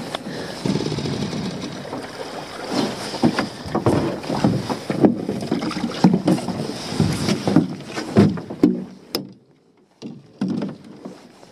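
Water splashing at the side of a small metal dinghy, with repeated knocks and clatter as a lobster pot, its buoy and rope are handled against the hull. The noise drops off briefly near the end, then picks up again.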